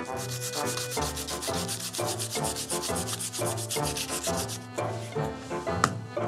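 Quick back-and-forth rubbing on paper, about ten strokes a second, as a cut-out paper piece is glued and pressed down onto a cardboard book page. The rubbing stops a bit over halfway through, and a single sharp click comes near the end.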